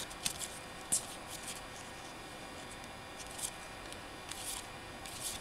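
Topps baseball trading cards being slid one by one off a handheld stack, card stock rubbing on card stock. It comes as a handful of brief, soft rustles about a second apart.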